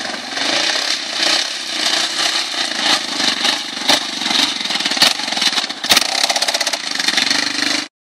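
Sport ATV engine revving hard as the rider wheelies past, its note rising and falling with the throttle, with a few sharp knocks along the way. The sound cuts off suddenly near the end.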